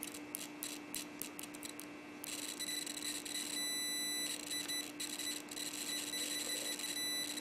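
Cheap MT87 clamp meter's continuity buzzer sounding as its test probe tips are touched together: a crusty, awful-sounding high beep that starts about two seconds in and drops out briefly a few times, not latching. Before it, a run of light clicks from the probe tips tapping together.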